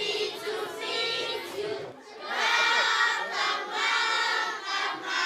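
A crowd of children's voices calling out, then from about two seconds in a class of young schoolchildren singing together.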